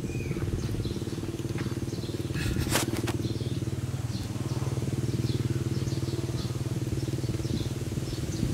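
A small engine running steadily, a low even drone, with faint chirps above it and one brief sharp crackle a little under three seconds in.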